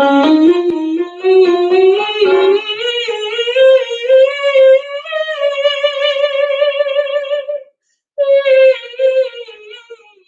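A woman singing a vocal warm-up exercise on a vowel: a run of quick notes climbing in pitch, then a long high note held with vibrato. After a short breath, a second phrase falls in pitch.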